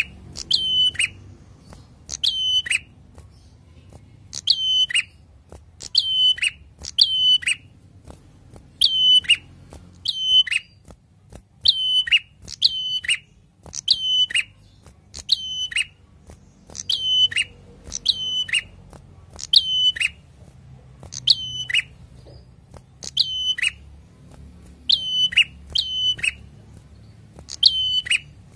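Caged tailorbird singing: loud, sharp, metallic notes, each ending with a quick downward hook, repeated about once a second and often in quick pairs.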